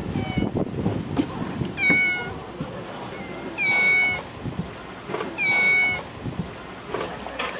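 Cats meowing: three long, high, even-pitched meows about two, four and five and a half seconds in, with fainter short mews near the start, over scattered low thumps.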